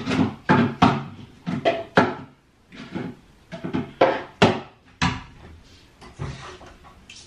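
Wooden kitchen cabinet doors being opened and shut and things handled at the counter: a string of about a dozen sharp knocks and clatters, irregularly spaced.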